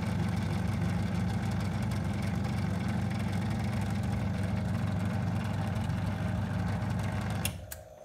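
Electric vacuum pump running steadily as it evacuates a bell jar, then switched off about half a second before the end with a click, its noise cutting off suddenly.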